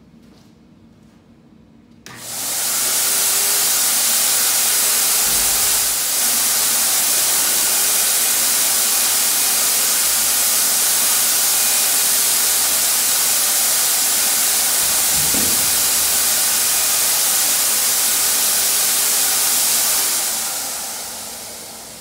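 HVLP turbine paint sprayer switched on about two seconds in, its turbine running with a loud, steady rush of air, then switched off near the end and winding down.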